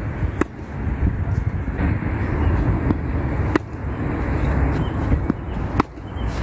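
Tennis racket strings striking a ball three times, sharp pops about half a second, three and a half seconds and nearly six seconds in, with a few fainter ticks between, over a steady low outdoor rumble.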